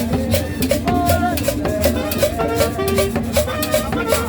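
Tropical Latin dance music with a fast steady beat, shaker-like percussion and short repeated instrumental notes.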